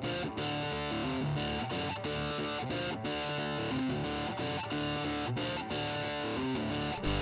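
Background music led by a distorted electric guitar playing held notes and chords at a steady level.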